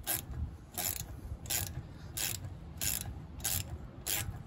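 Socket ratchet worked back and forth in short strokes, its pawl clicking in a brief run on each back-swing, about one and a half times a second. It is driving an M8 bolt into the threaded jacking hole of a Suzuki Jimny front brake rotor to push the rust-stuck rotor off its hub.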